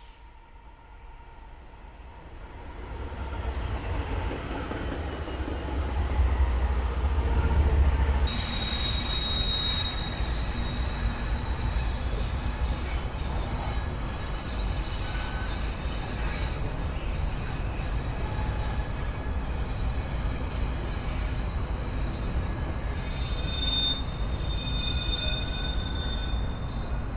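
Diesel freight locomotives approaching, their low engine rumble growing louder. About 8 s in the sound changes abruptly to a freight train rolling past, its steel wheels squealing in thin, high, steady tones, strongest just after the change and again near the end.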